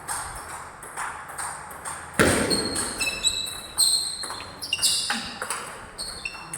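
Table tennis ball going back and forth in a rally: sharp clicks off the rackets and the table, about two to three a second. There is one heavier thud about two seconds in.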